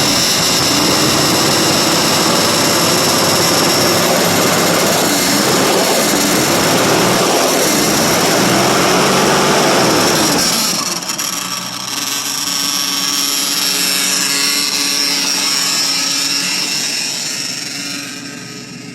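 1963 Ford Thunderbird's 390 FE V8 held at high revs for about ten seconds, then dropping back, picking up again briefly and easing down toward idle near the end. It is being revved to blow mouse-nest debris out of the exhaust.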